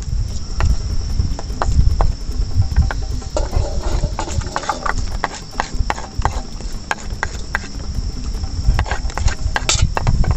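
Steady high-pitched insect chirring, crickets or similar, with many short clicks and scrapes of a spoon against a metal pan as it is scraped out, under a low rumble.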